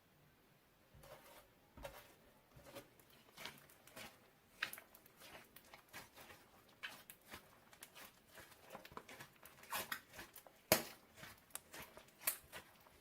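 Old slime being kneaded and stretched by hand with hand cream worked in: irregular small sticky clicks and pops, with one sharper pop about three-quarters of the way through.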